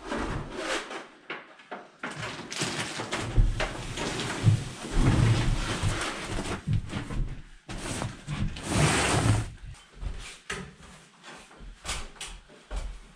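Plastic-wrapped fibreglass insulation bundle being rolled and shifted: crinkling plastic rustling in irregular bursts, with dull thumps and a few sharp knocks near the end.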